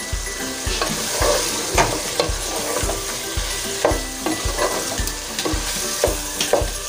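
A wooden spoon stirring and scraping cubed potatoes in masala in a nonstick pot, with the food sizzling over the heat.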